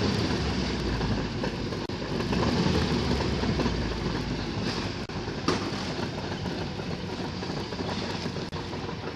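A clay blender turned by the drive wheel of a front-wheel-drive Toyota Corolla station wagon, with the car's engine running steadily and the blender churning thick clay slurry. The sound eases down slightly as the throttle is backed off from high revs.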